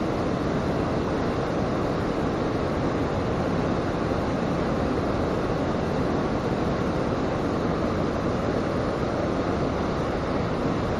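Steady rushing of a forest stream's flowing water, an even, unbroken noise with no change in level.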